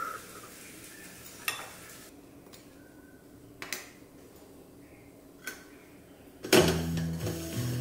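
A metal spoon scooping ground coffee into a stainless steel coffee filter basket, with three light metal clinks spread across several seconds. Music with sustained low notes comes in near the end and is the loudest sound.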